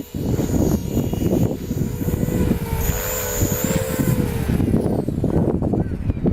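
Beam E4 electric RC helicopter whining in flight, its pitch wavering, under heavy wind buffeting on the microphone. The whine fades out about four and a half seconds in, leaving the wind noise.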